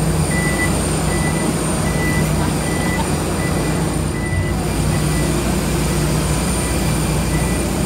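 Steady engine and ground-vehicle noise with a low hum, and a vehicle's reversing alarm giving a short high beep about every three quarters of a second.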